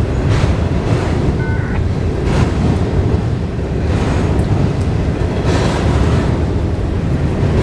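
Florida East Coast Railway freight train of intermodal cars rolling past over a steel drawbridge: a steady low rumble of wheels on rail, with a clatter every second or two as the cars' wheels cross the rail joints.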